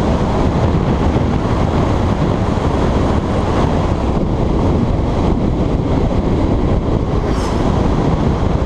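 A motorcycle being ridden, heard as a steady, loud rush of wind over the camera's microphone with the bike's engine running underneath.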